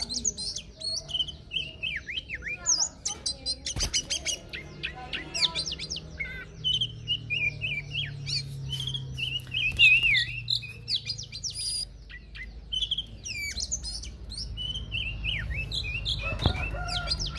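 Oriental magpie-robin singing a long, varied song: rapid whistled notes, rising and falling sweeps and harsh clicks, one after another with hardly a pause.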